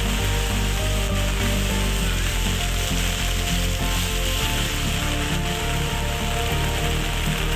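Heavy tropical rain pouring onto a paved street, a loud steady hiss, with soft background music underneath.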